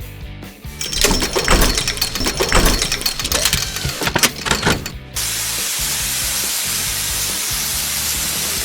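A burst of clattering, knocking work noise for about four seconds, then a sudden, steady hiss of spray that runs on evenly, over faint background music.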